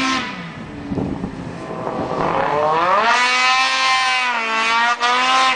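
Snowmobile engine with an aftermarket MBRP exhaust can, revving: the note falls off at first, then climbs about two seconds in and holds at high revs before dropping away sharply at the end.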